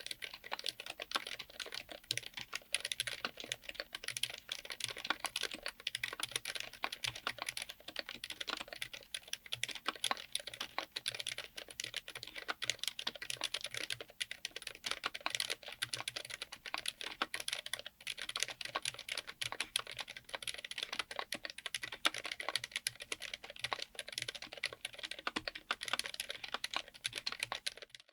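Continuous fast typing on a mechanical keyboard fitted with Kailh BOX Silent Pink silent linear switches, giving a dense, irregular stream of damped key presses. The typing stops abruptly near the end.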